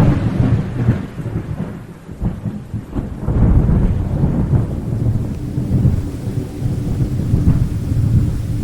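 Heavy rain with rolling thunder rumbling low and swelling louder about three and a half seconds in. A steady low tone joins about halfway through.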